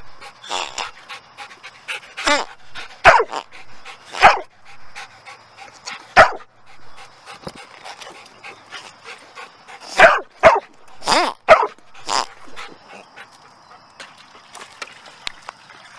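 Rubber pig squeeze toy squeezed by hand over and over, giving about ten short squeaky oinks, with a quick cluster of them around ten to twelve seconds in.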